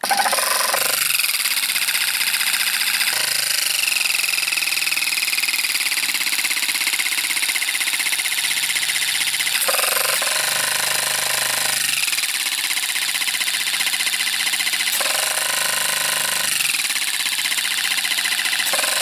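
12-volt car tyre-inflator compressor switched on and running steadily, its electric motor driving the piston as it pumps air into a pressure gauge. This is a test run after the piston repair, and it is pumping again.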